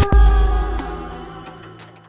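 Electronic intro music ending on a deep bass hit, with held tones that fade away over about two seconds.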